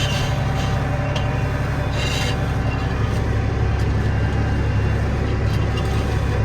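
Peterbilt semi truck's diesel engine running steadily, with a short hiss about two seconds in.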